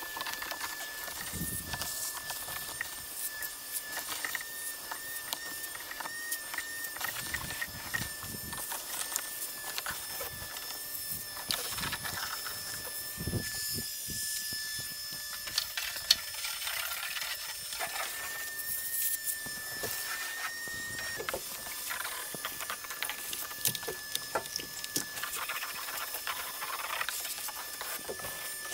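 Irregular knocks, scrapes and clatter of debris being cleared out of a boat hull by hand, over a steady high-pitched whine.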